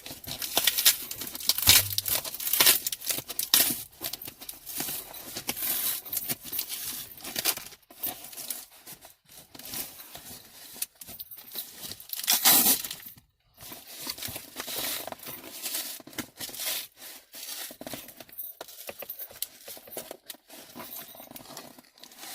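A shipping box being torn open by hand: repeated, irregular ripping of packing tape and cardboard, with crinkling of packing material.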